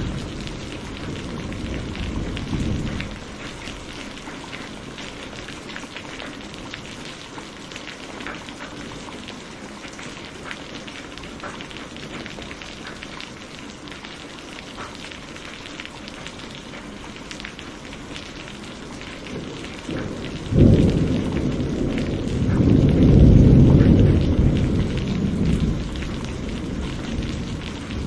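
Steady rain with individual drops striking a surface, under a thunderstorm. A low rumble of thunder dies away in the first three seconds; about twenty seconds in a sudden thunderclap breaks, rolls on and swells for a few seconds, then fades.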